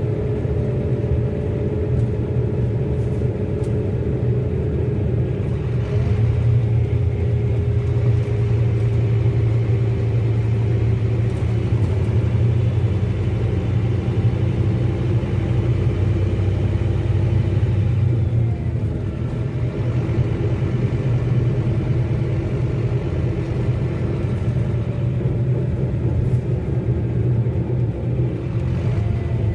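Rear-mounted five-cylinder inline diesel of a Scania K310IB bus running on the move, a steady low drone whose pitch drifts slowly, getting louder about six seconds in and easing off briefly about two-thirds of the way through.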